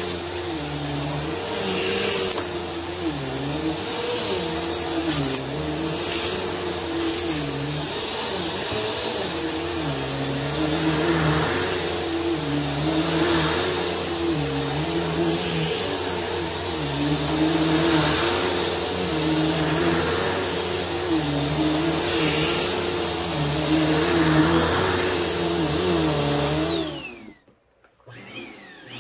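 Bissell stick vacuum running on a thick rug with a steady high motor whine, its tone swaying up and down with each push and pull of the brush head. Near the end the motor winds down to a brief near-silence, then whines back up as it is switched on again.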